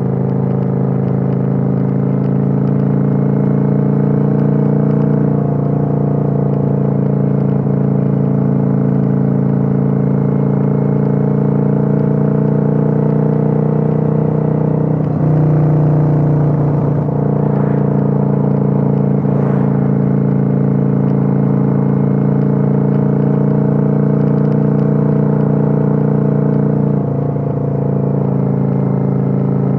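Kawasaki Vulcan 900's V-twin engine running steadily while cruising, heard from on board. Its note changes briefly about halfway through and dips slightly near the end.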